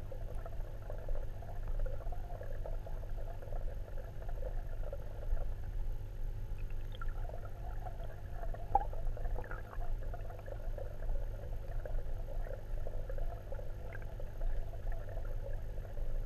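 Muffled underwater water noise picked up by a submerged camera: a steady low hum under a constant fluttering water sound, with a few faint clicks.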